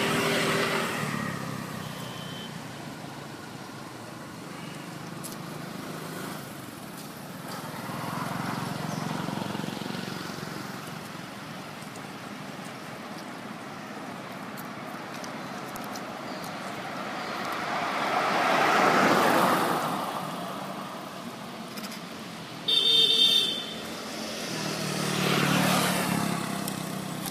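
Motor vehicles passing on a road, each one swelling and fading over a few seconds, and a short, loud high horn toot near the end.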